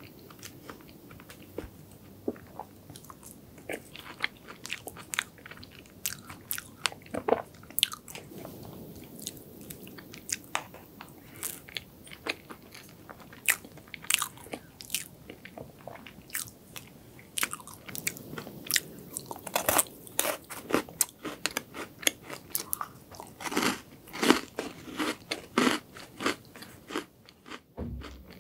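Close-miked eating sounds: chewing of soft cake and cream, with irregular sharp clicks and crunches that come thicker in the second half.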